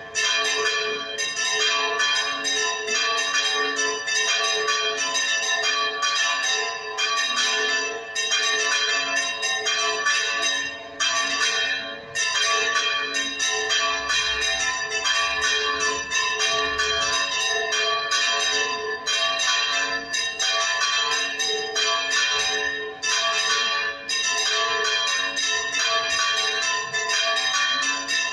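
Church bells swinging full circle in the Spanish volteo style, their clappers striking again and again in a continuous peal, several strikes a second, each ringing on into the next.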